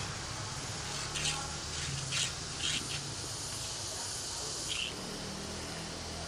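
Outdoor forest ambience: a steady low hum under a handful of short, high chirps spread over the first five seconds.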